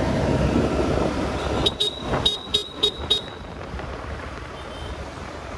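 Street traffic noise with a vehicle horn giving about six short, quick beeps about two seconds in. A quieter steady traffic hum follows.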